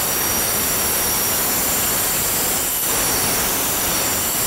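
Angle grinder with a diamond blade cutting through a patio paver: a steady high motor whine over loud, continuous grinding of the blade in the stone.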